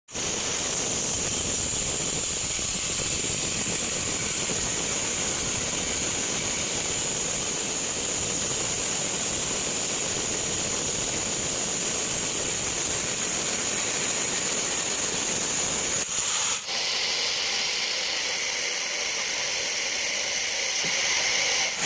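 Sawmill machinery running steadily with a continuous hissing noise. About 16 seconds in the sound dips briefly and then carries on with less low rumble.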